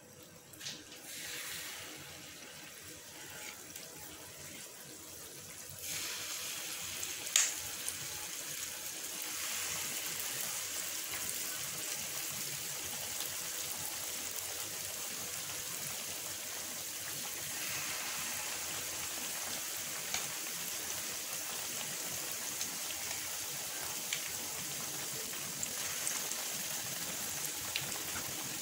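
Spoonfuls of banana and wheat-flour batter frying in hot oil in a pan: a steady sizzle that gets louder about six seconds in as more batter goes into the oil. A single sharp click comes just after the sizzle rises.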